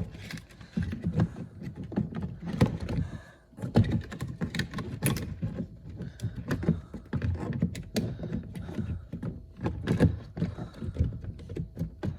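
Irregular clicks, taps and knocks of hands working on a car's plastic interior door trim, with low thuds in between.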